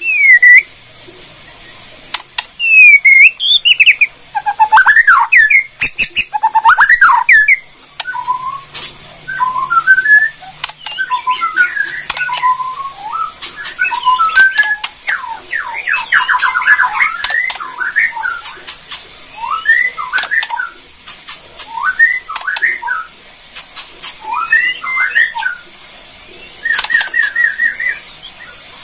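White-rumped shama (Bornean murai batu) singing: loud, varied whistled phrases with sliding notes and quick trills, broken by short pauses and mixed with sharp clicking 'kretekan' notes.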